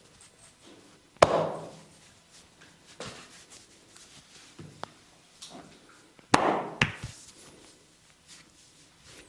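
A masseur's hands striking bare skin in percussive back massage. There are two loud slaps, one about a second in and one about six seconds in, with lighter taps and chops between.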